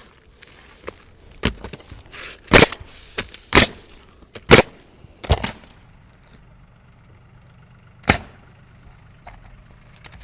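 Sharp, irregular bangs and knocks on sheet-metal roofing, about seven in all, most of them close together in the first half and one more after a pause.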